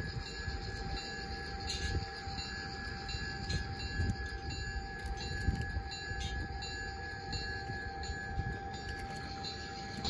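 G-scale model train rolling slowly past on garden track: the hopper cars' wheels run over the rails with a few light clicks, over a steady humming tone from the train.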